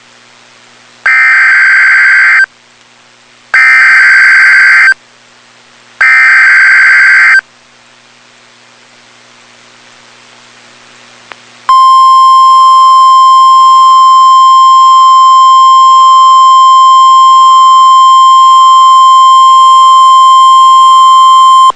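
Emergency Alert System tornado warning. It opens with three bursts of screeching digital header data, each about a second and a half long. After a few seconds' pause comes a single steady high alert tone held for about ten seconds, the weather-radio attention signal that precedes a warning message.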